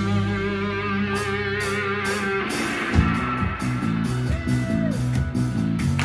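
Live blues-rock band playing: electric guitars, bass and drum kit. A chord rings out with a wavering, vibrato-laden top for about two and a half seconds, then a hit about three seconds in brings in a repeating low riff with steady cymbal strokes.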